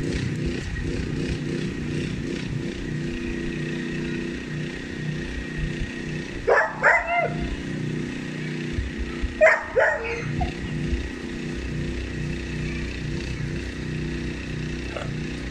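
A dog barking in two short bursts of a few barks each, about six and a half and nine and a half seconds in, over a steady low engine drone.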